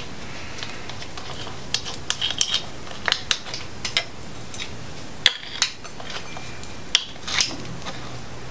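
Scattered light metallic clicks and taps as bolts are set into an oil pump and the pump is handled against the engine block, over a steady background hiss.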